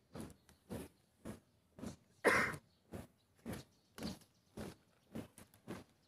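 Marching troop's feet stamping in step, short crunching strokes at about two a second, with one louder, longer stroke a little over two seconds in.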